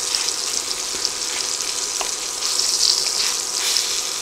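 Thick pork chops searing in hot oil and butter in a cast iron skillet: a steady sizzle with small crackling pops.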